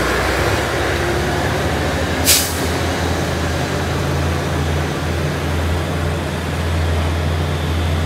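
Heavy diesel truck engine running steadily under load, with one short sharp air-brake hiss a little over two seconds in.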